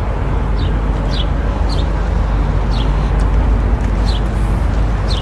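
A steady low outdoor rumble, with a small bird giving about six short, falling chirps spread through it.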